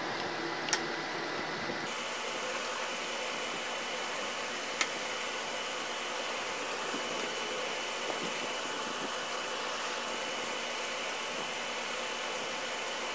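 Egg-and-potato balls deep-frying in hot oil in a pot, a steady sizzling hiss with a few light clicks. A faint steady high tone joins it about two seconds in.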